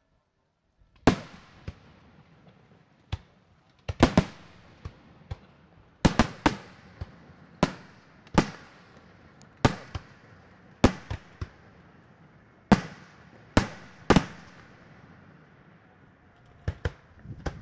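Aerial firework shells bursting in a display, about twenty sharp bangs at irregular intervals starting about a second in, each followed by a rolling echo that dies away.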